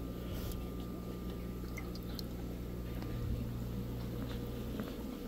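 Faint wet squishing and dripping as a hand scoops wet fish food out of a plastic tub, over a steady low hum.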